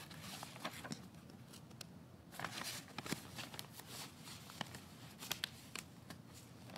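Faint scattered clicks and brief rustles over a low steady hiss, with a small cluster of them a little after two seconds in and another around five seconds in.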